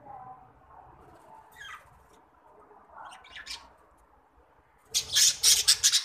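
Budgerigars in an aviary chirping softly a few times, then a loud burst of harsh, rapid squawking in the last second.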